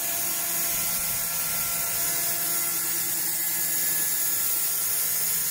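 Steady hiss of compressed air and condensate blowing out of the air dryer's automatic ECO-DRAIN condensate drain, over the steady hum of the running ALUP screw compressor.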